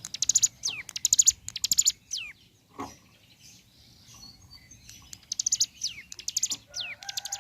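Ciblek gunung, a prinia, singing: short bouts of very fast, high, rattling trills (the 'bren'), most followed by a quick downward-slurred whistle, with a pause of about three seconds in the middle.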